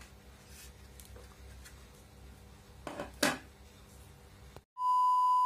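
Faint handling of a plastic helmet visor, with two short scraping sweeps about three seconds in. Near the end, after a moment of dead silence, a loud steady electronic beep, one held tone, added at an edit.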